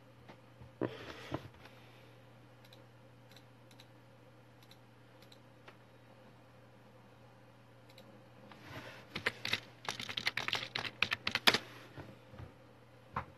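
A quick flurry of clicking taps, like typing, lasting about three seconds from roughly nine seconds in, after a single knock and brief scuffle near the start.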